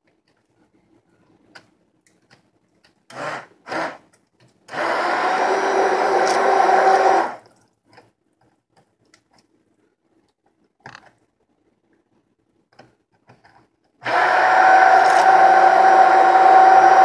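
Hand-held immersion (stick) blender running in a bowl of liquid chocolate sauce, a steady motor whine: two quick blips about three seconds in, a run of about two and a half seconds from about five seconds, then running again steadily from about fourteen seconds on.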